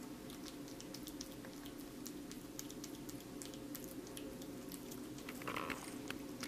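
Kitten chewing and biting at a wedge of watermelon: many small, quick, wet clicks of tiny bites, over a faint steady hum. A brief higher-pitched sound comes a little before the end.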